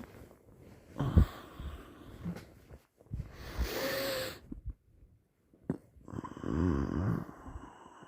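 A sleeping person snoring, several separate breaths: a short sharp snort about a second in, then a long hissing breath with a faint whistle, then a low pulsing snore near the end.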